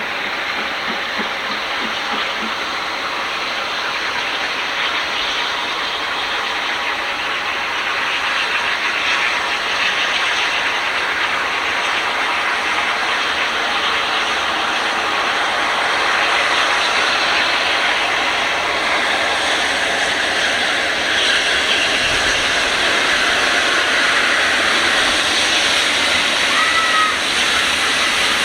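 A train running by: a steady rushing rail noise that grows gradually louder.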